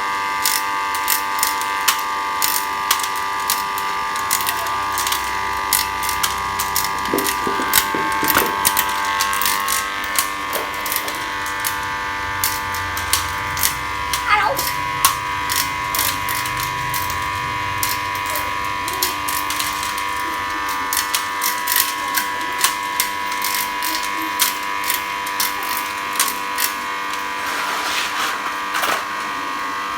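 Electric snail-tail cutting machine running with a steady motor whine, overlaid by many irregular sharp clicks and rattles of snail shells in the mechanism.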